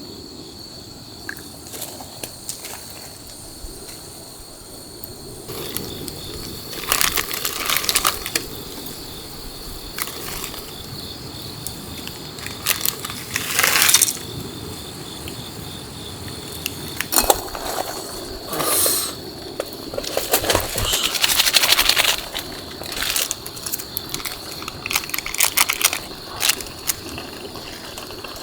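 Irregular clinks and rustling of camp food preparation: utensils knocking on cookware and crinkling packaging, in short bursts with pauses between.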